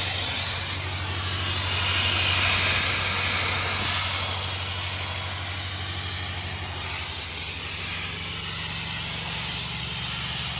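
Sandblasting nozzle hissing as it sprays sand and air against a tractor's engine block, stripping the paint. The hiss swells and eases, loudest a couple of seconds in, over the steady drone of the tractor engine that drives the air compressor.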